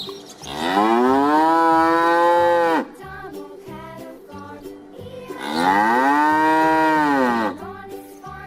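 A cow mooing: two long moos, each about two seconds, with a pitch that rises and then falls away at the end. Light background music plays underneath.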